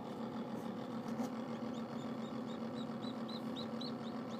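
Newly hatched chick peeping: a run of short, high chirps about four a second starting about two seconds in, over a steady low hum.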